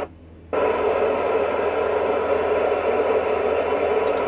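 FM transceiver tuned to the ISS repeater downlink giving a steady hiss of static through its speaker. The hiss comes on suddenly about half a second in, with no voice on the channel.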